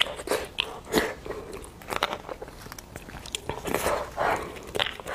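Eating beef bone marrow: chewing and mouth sounds, mixed with sharp short clicks as a metal spoon scrapes and taps inside a split beef bone.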